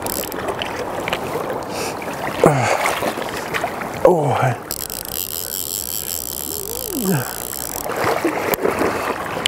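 Fly reel's click-and-pawl drag buzzing in spells as a hooked trout pulls line, over the steady rush of river water. Three short falling-pitched voice-like sounds come in between.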